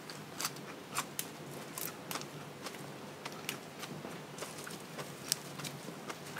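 Close-miked eating: chewing with irregular sharp, wet clicks and smacks, a dozen or so spread unevenly, over a faint steady low hum.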